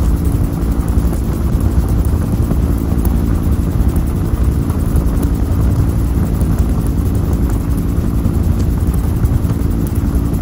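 Bell UH-1 Huey helicopter in cruising flight, heard from on board: its turbine engine and main rotor make a steady, loud, low drone with several held tones in it.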